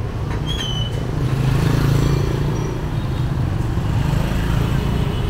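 Motor scooters running in street traffic, a steady low engine rumble that swells for a second or so as one comes closer.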